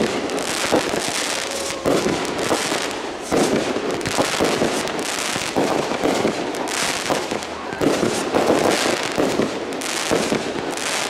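Consumer aerial fireworks going off in a rapid barrage: launches and shell bursts follow one another every second or so over continuous crackling.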